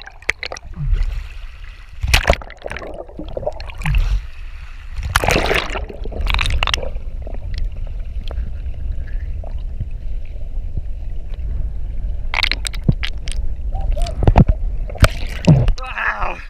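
Water sloshing and splashing against a steady low rumble, with repeated loud splashes.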